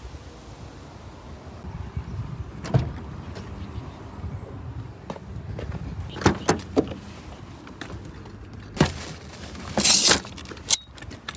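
Camping gear being handled and unpacked for site setup: a series of irregular knocks and clunks, with a longer rustling scrape near the end, over low wind rumble on the microphone.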